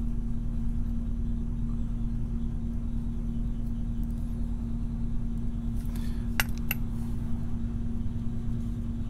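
Small metal clicks from handling the brass plug and wafers of a wafer lock with a small tool, two sharp ones about six and a half seconds in, over a steady low hum.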